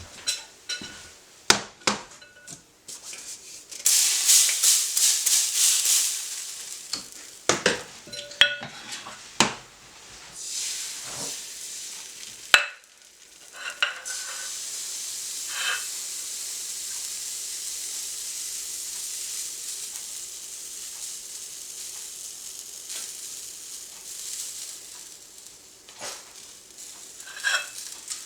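Crepe batter sizzling in a hot frying pan, jumping loud about four seconds in and then settling into a long steady sizzle. Sharp clinks and knocks of utensils against the pan come in the first dozen seconds and again near the end.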